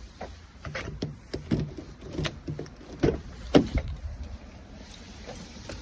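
Clicks and clunks of a truck door being opened and someone climbing into the cab, a string of short knocks with the loudest about three and a half seconds in.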